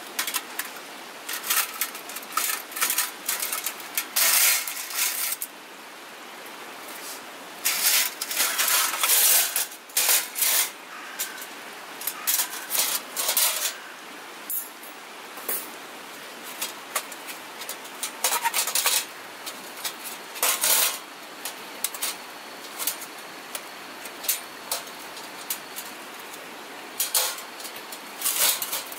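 Stainless steel folding fire stand being unfolded and assembled: metal panels and legs clinking and clattering against each other in irregular clusters.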